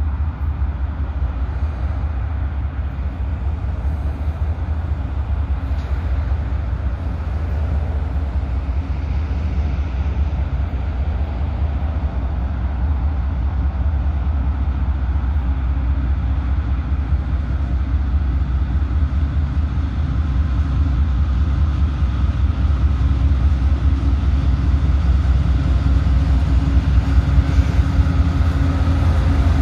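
Diesel locomotives of a Union Pacific freight train approaching: a steady low rumble that grows louder throughout, with the engines' hum coming through more clearly near the end as the lead units draw close.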